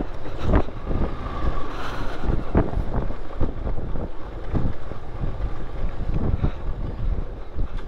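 Wind buffeting the microphone of a moving motorcycle, in uneven gusts over the low rumble of the bike's engine and tyres on the road.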